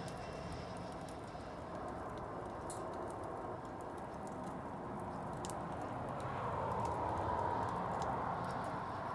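Wood bonfire burning: a steady rush of flame with scattered small crackles and pops, swelling louder for a couple of seconds past the middle.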